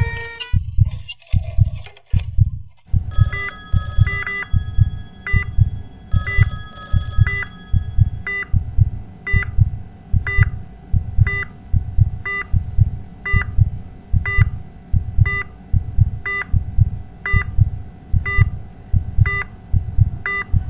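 Heartbeat sound effect: deep, even thumps about one and a half a second, with a hospital patient monitor beeping about once a second over a steady tone. Two short bursts of electronic ringing come about 3 and 6 seconds in.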